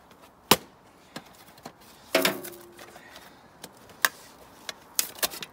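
Scattered sharp clicks and knocks of plastic and sheet metal as plastic pieces are pried off a gas dryer's metal front panel with a screwdriver, about five in all. One knock about two seconds in rings briefly.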